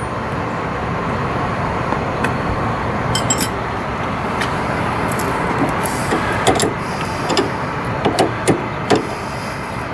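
A wrench working a steel jam nut on a stop-arm linkage, giving irregular metal clicks and clinks, some ringing briefly, mostly in the second half, over a steady vehicle hum.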